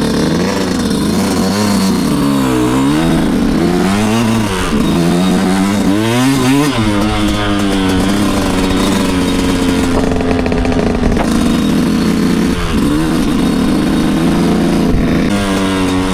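2025 Yamaha YZ125 two-stroke dirt bike engine being ridden on a trail, revving up and dropping back several times in the first half as the throttle is worked, then running at a steadier pitch.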